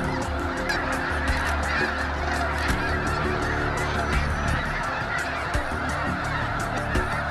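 A huge flock of snow geese calling all at once: a dense, unbroken din of overlapping honks.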